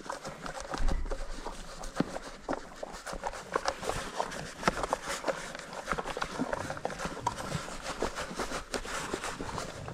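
Horses shifting about in their stalls: irregular hoof knocks and clicks on the barn floor.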